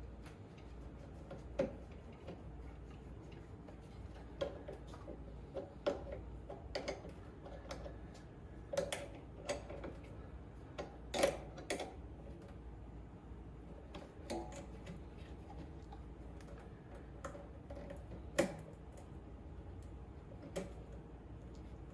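Scattered light clicks and metal taps of hand tools and small hardware while wires are fastened to a mower's starter solenoid terminals, the sharpest about halfway through and again near the end, over a low steady hum.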